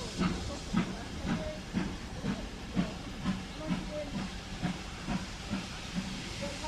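Steam locomotive working toward the station, its exhaust beating evenly about twice a second over a steady hiss of steam.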